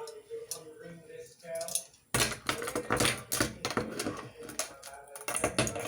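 Metal handcuffs being handled: a dense run of rapid clicks and metallic rattling that starts suddenly about two seconds in.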